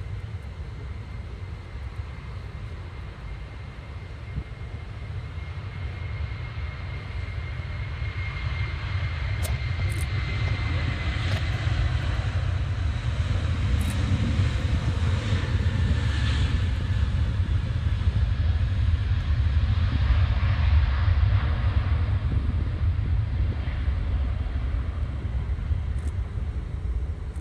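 Airbus A330 twin-engine airliner taking off at full thrust: jet engine noise with a steady high whine, growing louder over about twenty seconds as the jet accelerates down the runway and lifts off, then easing slightly as it climbs away.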